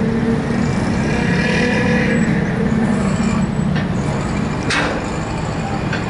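Engines running as motorcycles ride off the ramp of a docked vehicle ferry, over the steady rumble of idling motors, with a swell of motorcycle engine noise about one to three seconds in.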